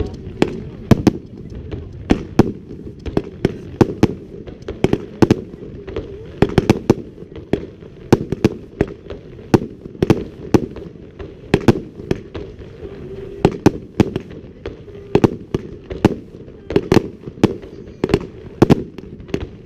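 Fireworks exploding in a dense, irregular run of sharp bangs, roughly two a second, over a steady low rumble.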